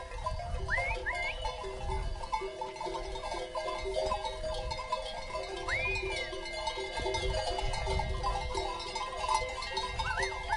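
Many bells on a moving flock of sheep jangling and clanking together without a break. A few short rising whistles sound about a second in, near the middle and near the end.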